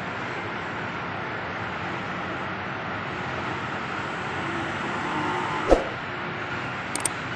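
Steady outdoor hum of distant road traffic. A short sharp pop comes about three-quarters of the way through, and two faint clicks follow near the end.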